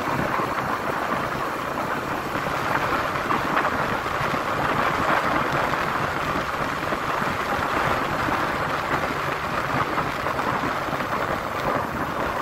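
Steady rush of wind and road noise on a moving motorcycle, with a faint engine hum underneath.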